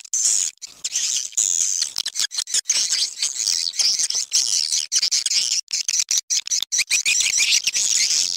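Swiftlet calls: a dense, high-pitched chattering twitter broken by many brief gaps. This is a swiftlet lure call, played to draw passing swiftlets into a swiftlet nesting house.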